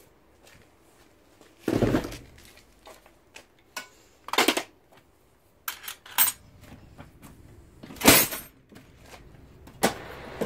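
Hand tools rattled in a metal cantilever toolbox: spanners and screwdrivers clattering and clinking in separate bursts as a hand rummages through the trays. The loudest clatters come about two seconds in and about eight seconds in.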